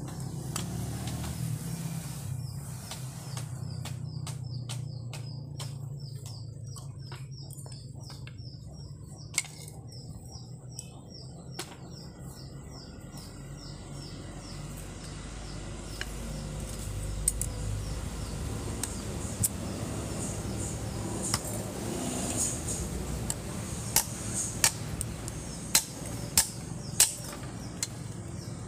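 A bird chirping in quick, evenly repeated calls over a steady low hum. From about halfway, a series of sharp metallic clicks and taps, metal on metal, as tools are worked against the steel machete blade.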